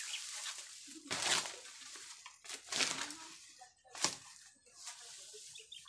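Digging in soil and weeds with a hand tool: several short rustling, scraping strokes, with a sharp knock about four seconds in.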